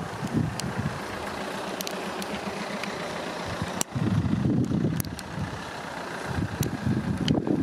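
Wind buffeting the microphone in irregular gusts of low rumbling, stronger from about four seconds in, over a steady outdoor hiss, with scattered sharp ticks.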